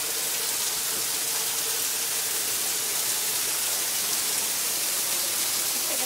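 Waterfall pouring as a curtain of water in front of a cave: a steady rushing hiss.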